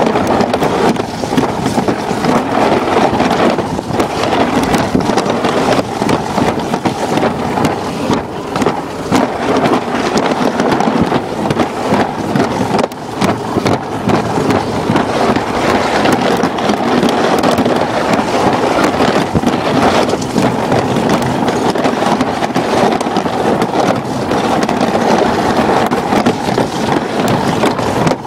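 Alpine slide sled rolling down the track on its wheels: a loud, steady rolling noise with frequent small knocks and clatter.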